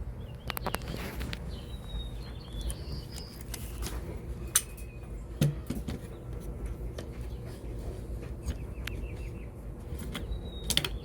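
Scattered clicks and light clinks of a disassembled airsoft rifle's parts being handled while its inner barrel is taken out, over a steady low hum.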